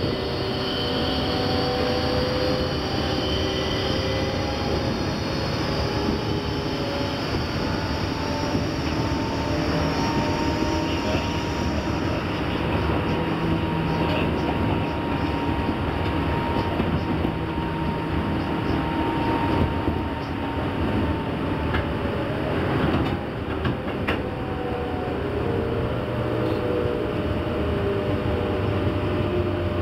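JR 201 series electric train heard from inside the car: the whine of its armature-chopper control and traction motors over steady wheel-on-rail running noise. A high whine drops out about twelve seconds in, and near the end the whining tones slide down in pitch as the train brakes into a station.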